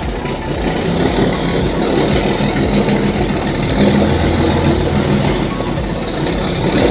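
Motorboat engine running steadily close by as a boat passes, a little louder from about four seconds in.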